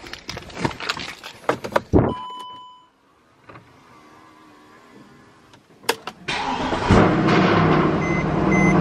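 Mercedes-Benz C63 AMG's 6.2-litre V8 starting on a freshly fitted battery after the old one had gone dead: a dashboard chime about two seconds in, the starter cranking about six seconds in, and the engine catching and running loud. A warning chime beeps about twice a second near the end.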